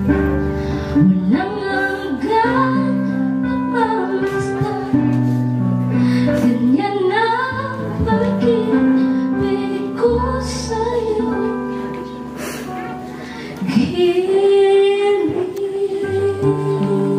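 A bride's solo singing voice, a woman singing a slow melody over sustained accompaniment chords. She holds one long note about three-quarters of the way through.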